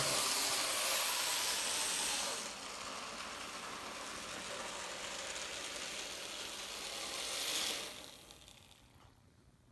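N scale 0-6-0 tank locomotives and their passenger cars running on the layout's track, giving a steady hissing whir with no chuff rhythm. It is louder for the first couple of seconds, then softer, and dies away about eight seconds in.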